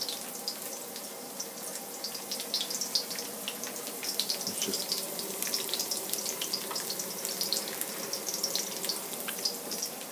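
Shallot and garlic frying in a pan: a steady sizzle with many small crackles and pops, over a faint steady hum.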